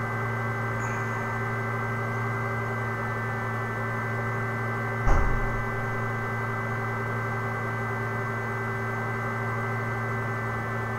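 Steady electrical hum made of several fixed tones, with a single thump about five seconds in.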